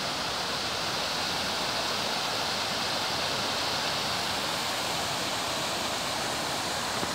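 Small river waterfall cascading over rock ledges into a pool: steady rushing water.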